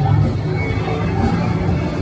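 Loud music with a heavy bass line, with the chatter of a crowd behind it.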